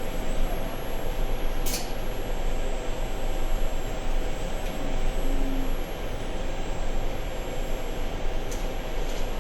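Automated machining equipment running steadily with a constant mechanical drone and low rumble, with two short high hisses, one about two seconds in and one near the end.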